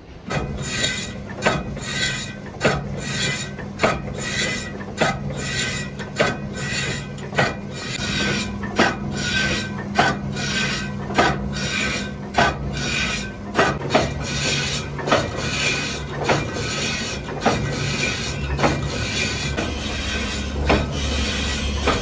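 Metal lathe turning a cast rear axle housing: the motor hums steadily while the cutting tool scrapes the metal, with a sharp knock a little over a second apart as the tool meets the uneven casting.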